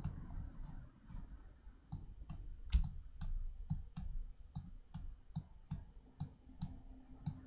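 Computer mouse button clicking repeatedly, about two to three light clicks a second, starting about two seconds in.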